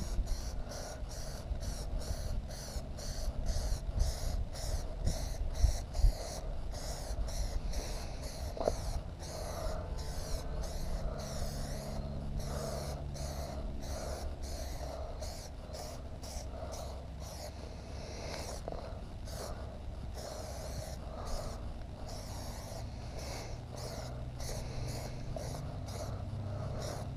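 Aerosol can of Plasti Dip rubber coating spraying in a long run of short hisses as a first, light coat goes on.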